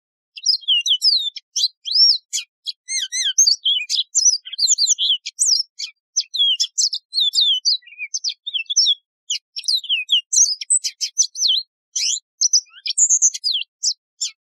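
Yellow-fronted canary (Mozambique canary) singing a long, fast song of high sweeping notes and trills, beginning about half a second in.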